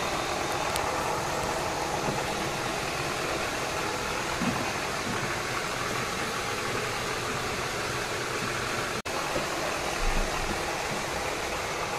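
A steady, even rushing noise, like a motor or fan running, with a momentary dropout about nine seconds in and a couple of soft low bumps just after.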